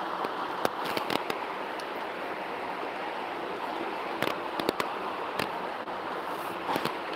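Steady outdoor background noise with several short, sharp clicks scattered through it.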